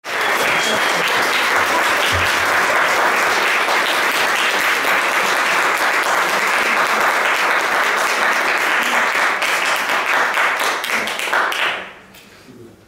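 Audience applauding steadily, stopping near the end.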